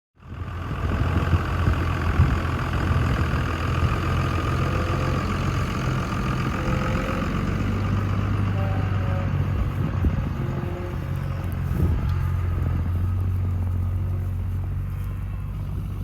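A vehicle engine running steadily: a low, even hum with a fainter whine above it.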